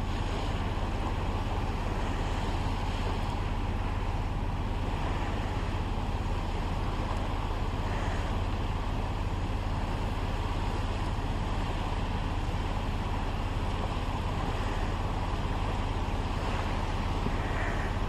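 Steady, unchanging low rumble under an even hiss, with no distinct events.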